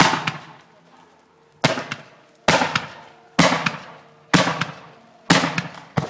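Fireworks bursting overhead, six sharp bangs roughly a second apart, each followed by a fading crackle.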